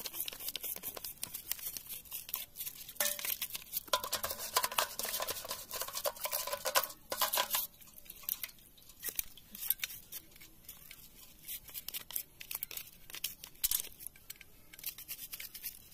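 Irregular clicks, taps and scraping of plastic and metal parts being handled on a partly dismantled Stihl MS382 chainsaw, busiest between about three and seven and a half seconds in.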